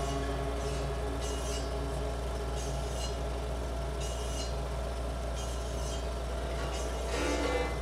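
A steady low hum with faint held tones lingering above it; plucked-string music starts to come back in near the end.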